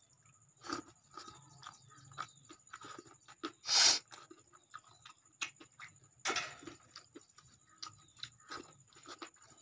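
Close-up chewing and mouth clicks of a man eating dal, rice and chowmein by hand. There is a loud slurp just before four seconds in, as a strand of chowmein is sucked in, and another loud mouth noise a little after six seconds.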